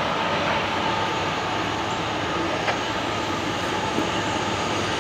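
Freight train not yet in sight: a steady rumble and rail noise with a faint, steady ringing tone, and one sharp click a little past the middle.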